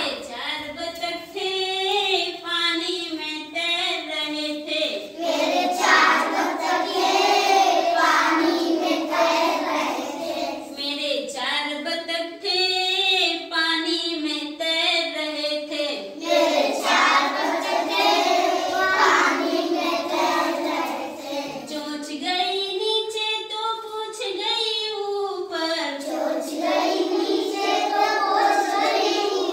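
A group of young children singing an action song together in unison, with a woman's voice singing among them.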